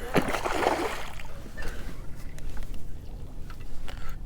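Water splashing and trickling around a kayak, with a few light knocks against the hull.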